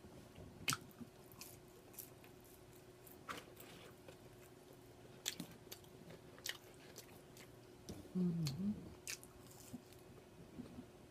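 A person chewing food: scattered faint mouth clicks and smacks, with a short hum of her voice about eight seconds in. A faint steady hum runs underneath.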